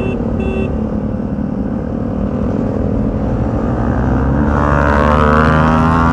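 Motorcycle engine running under way, then revving up and rising in pitch and loudness about four and a half seconds in.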